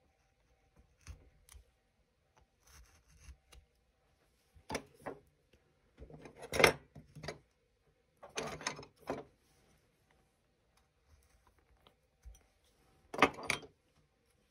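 Carving knife slicing and paring basswood in scattered short strokes, with a few louder clinks of hand tools being handled. The loudest strokes come about six and a half seconds in and near the end.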